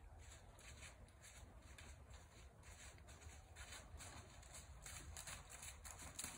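Faint, even hoofbeats of a young Quarter Horse walking closer, growing louder in the last couple of seconds.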